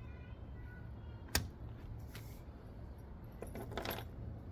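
A single sharp click about a second and a half in as the electric scooter's stem is handled during assembly, then a few quieter clicks and rattles near the end.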